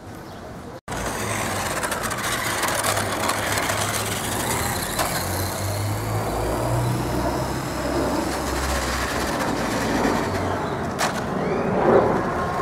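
Electric motor of a 1/4-scale RC motocross motorcycle whining faintly and rising and falling with the throttle as it is driven, over a steady low rumble like road traffic. The sound cuts out for an instant about a second in.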